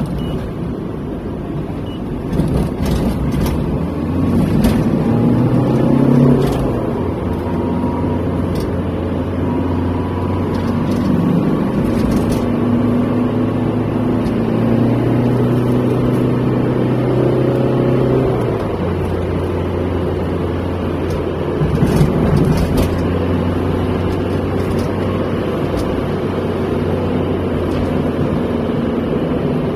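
Car engine and tyre noise heard from inside the cabin while driving in traffic. The engine note changes a few times as the car speeds up and slows, with a few brief knocks.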